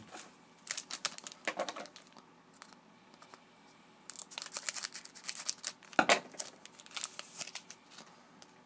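A trading-card pack wrapper being torn open and crinkled, in several crackly spells with a heavier knock about six seconds in, as the cards are handled.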